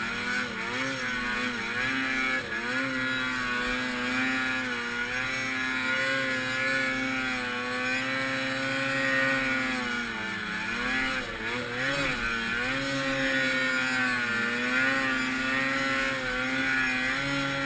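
Ski-Doo TNT 500SS snowmobile's two-stroke engine running at high revs under throttle. Its pitch dips briefly as the throttle is eased about ten seconds in, and again near the end.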